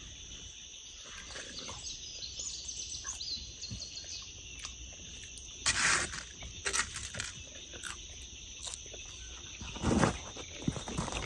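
A steady, high-pitched insect drone fills the background, broken by two brief, louder noises about six seconds and ten seconds in.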